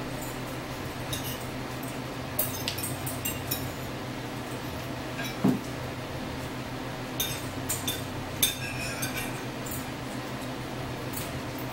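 Metal cutlery clinking and scraping against plates while two people eat, scattered light clinks throughout with one louder dull knock about halfway through. A steady low hum runs underneath.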